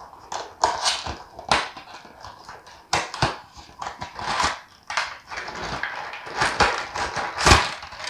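A cardboard toy box being opened and handled, with its plastic packaging sliding and crinkling: irregular rustling and scraping with sharp clicks, the loudest about seven and a half seconds in.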